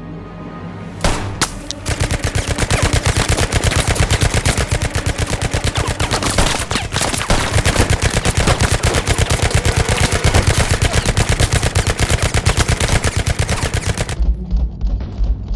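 Rapid automatic gunfire, film-style gun sound effects: a couple of single shots about a second in, then a long unbroken stream of fast shots that stops about fourteen seconds in.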